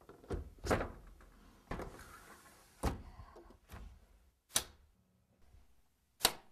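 Sliding window sashes being set into their frame and track: a series of knocks and clunks with a short sliding rush between them, the sharpest knocks about four and a half and six seconds in.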